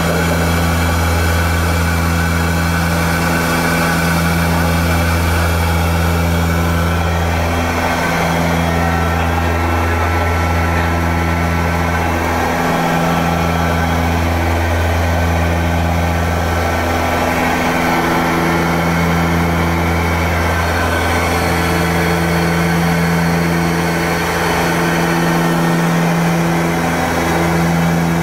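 Antonov An-24's twin turboprop engines and propellers droning steadily in cruise, heard from inside the cockpit; the deep hum swells and fades slowly every few seconds.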